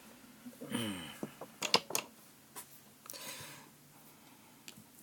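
Oracle cards being handled: a few sharp clicks in quick succession about a second and a half in, then a brief rustle, with a short falling hum from the reader's voice just before the clicks.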